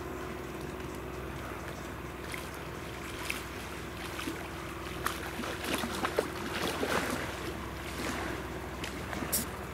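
Aviat Husky A-1C-180 floatplane's four-cylinder Lycoming engine and propeller droning steadily, heard from far away as it climbs out after takeoff. A scatter of short crackles and clicks comes about halfway through.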